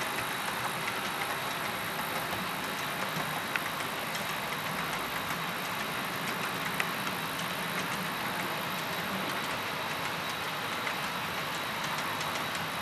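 HO scale model freight train running past: a steady mechanical whir from the locomotives and rolling cars, with scattered light clicks from the wheels on the track.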